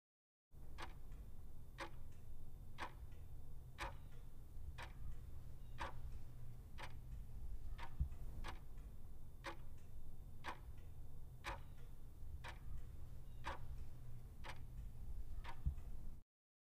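Clock-ticking sound effect for a quiz countdown timer, about one tick a second over a steady low hum, marking the time left to answer. It starts about half a second in and cuts off abruptly near the end.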